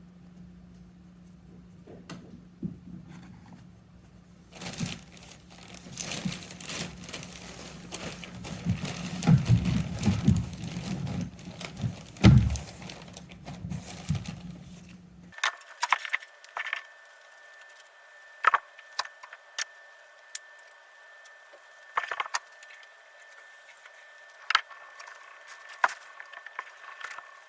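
Hands and tools working a leather-hard clay slab: a stretch of irregular rustling and scraping, then, after an abrupt change of background, scattered light taps and clicks.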